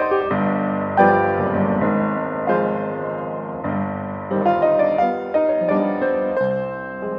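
Piano music as the film's score: chords with a melody line above, each note struck and left to ring.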